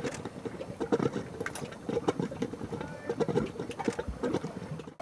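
Mud volcano vent gurgling and popping irregularly as gas bubbles burst through the mud and water in its crater.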